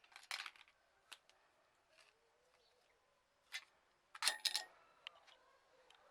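A few sharp clicks and taps of hard objects being handled. About four seconds in comes a short clatter, the loudest sound, with a brief high ring.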